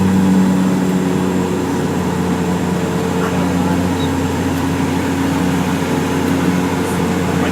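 Steady drone of an airliner's engines and air flow heard inside the passenger cabin, with a constant low hum.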